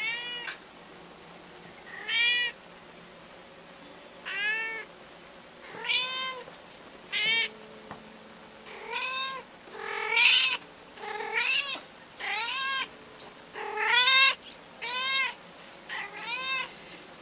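Female black domestic cat meowing repeatedly, about a dozen loud drawn-out meows, each rising and then falling in pitch, one every second or two and coming faster in the second half. This is insistent calling that the owner puts down to her being in heat.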